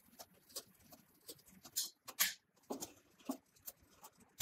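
HighTex ASM911 pattern sewing machine stitching through strap webbing, heard as a run of quiet, short clicks from the needle strokes, roughly two to three a second and unevenly spaced, with a few louder clicks about two seconds in.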